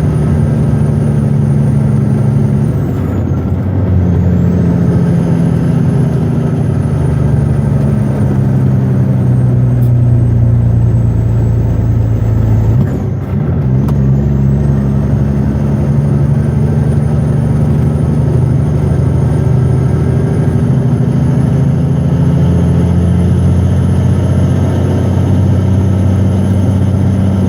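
Diesel engine of a loaded Western Star logging truck running hard and steady. Its pitch sags slowly, then jumps to a new pitch with a brief drop in loudness about 3 seconds in and again about 13 seconds in, as with gear changes.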